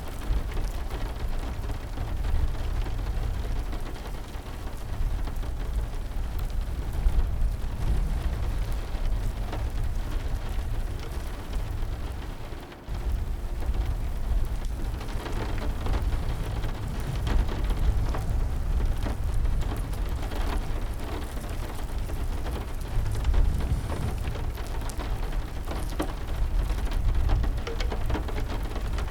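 Steady heavy rain with scattered drop ticks over a continuous low rumble, dipping in level for a moment about halfway through.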